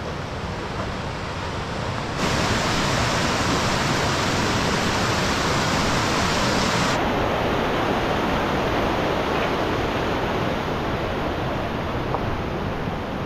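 Fast mountain creek rushing over boulders as a steady whitewater noise. It grows louder about two seconds in, close to the water.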